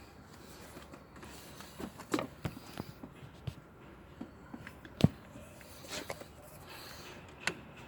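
Scattered metallic clicks and knocks of wrenches being worked on the belt tensioner while the drive belt is slipped over the pulleys. The loudest single knock comes about five seconds in.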